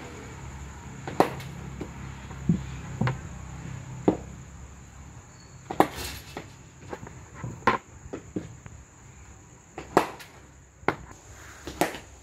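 Sharp knocks of a cricket bat meeting a red leather ball and of the ball striking the artificial-turf net pitch, a knock every second or two, the loudest about six and ten seconds in. A steady high-pitched insect drone runs underneath.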